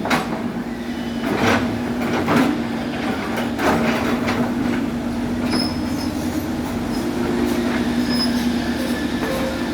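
Excavator at work: a steady machine hum at one pitch throughout, with four or five sharp metallic clanks in the first four seconds and a few short high squeaks in the second half.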